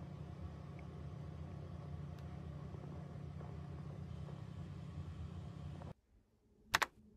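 Steady low background rumble that cuts off about six seconds in, followed by a brief double click near the end.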